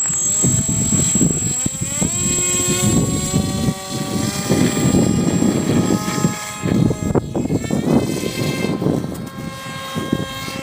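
Radio-controlled model plane's motor and propeller whining, rising in pitch twice in the first two seconds as the throttle is opened, then holding a steady pitch.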